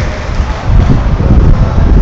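Wind buffeting the microphone: a loud, low rumble that grows stronger about two-thirds of a second in.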